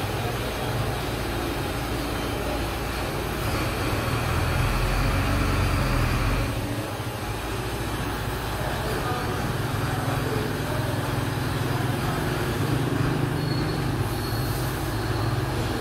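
Steady low rumbling background noise with a constant hum underneath.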